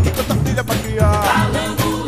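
Upbeat song with a steady beat, about two beats a second, and a voice singing about a second in.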